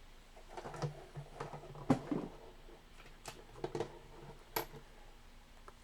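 Small metal locks and tools being handled on a table: a scatter of light clicks and taps, the sharpest about two seconds in.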